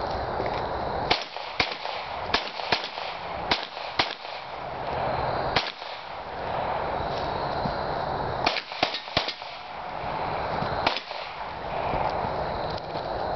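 Ruger 10/22 .22 rimfire semi-automatic rifle firing about eleven sharp cracks in uneven groups of one to three shots, the last about eleven seconds in.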